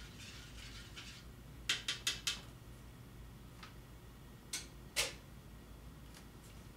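Sharp clinks and knocks of dishes or utensils being handled: a quick run of four about two seconds in, then three single ones over the next few seconds.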